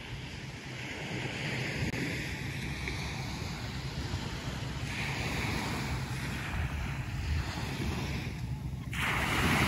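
Small surf washing onto a sandy beach, swelling a few times and loudest near the end, with wind buffeting the microphone.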